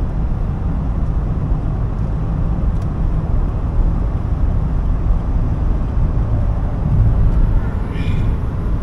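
Steady low engine and road rumble heard from inside a moving car.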